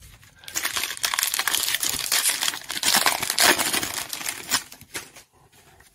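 Foil wrapper of a basketball trading-card pack crinkling as it is torn open and peeled off the stack of cards. A dense crackle starts about half a second in and dies away near the end.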